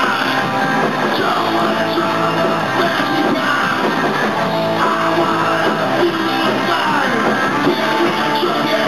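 Rock band playing live: amplified electric guitar and the full band, loud and unbroken.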